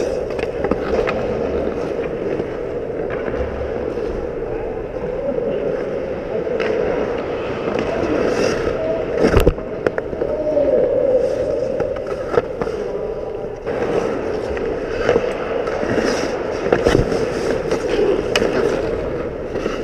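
Ice hockey skate blades scraping and carving on the ice around the goal. Sharp clacks of sticks and puck are scattered through it, the loudest about nine and a half seconds in.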